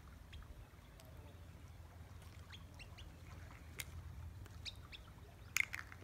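Gulls calling faintly over a low steady rumble, with scattered sharp clicks; the loudest is a double click near the end.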